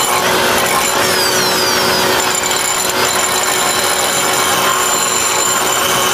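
Air die grinder running steadily, its abrasive disc grinding the edge of a steel lawn mower blade to sharpen it.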